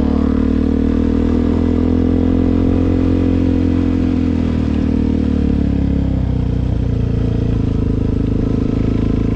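Suzuki DR-Z400's single-cylinder four-stroke engine running steadily, its pitch easing down a little about halfway through.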